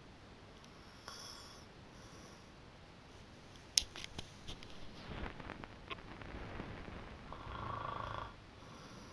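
A sleeping person snoring: a breathy stretch of breathing builds from about five seconds in into one snore near the end. A sharp click comes shortly before the breathing.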